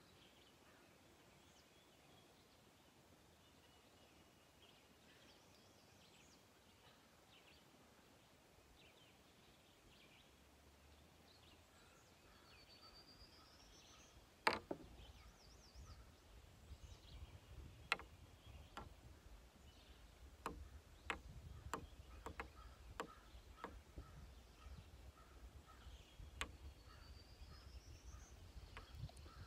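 Near silence with faint bird calls, including a rising whistled call heard twice. About halfway in comes a sharp click, then irregular clicks over a low rumble.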